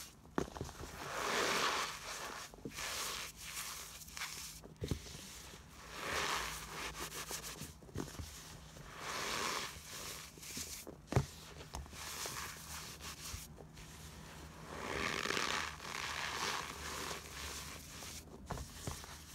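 Hands squeezing and crumbling floral foam caked in cornstarch, a gritty crunching and rustling that comes in slow swells every few seconds, with a few faint sharp crackles between them.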